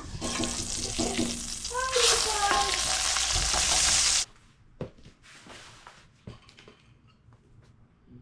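Meat sizzling in hot grease in a stainless steel skillet while a spatula turns it. The sizzle cuts off suddenly about four seconds in, leaving only faint clicks.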